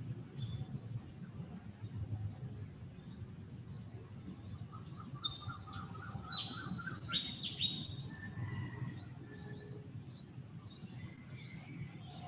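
Several birds chirping and calling, with a fast trill of rapidly repeated notes starting about four seconds in and the loudest chirps, sweeping downward, just past the middle, over a steady low rumble of background noise.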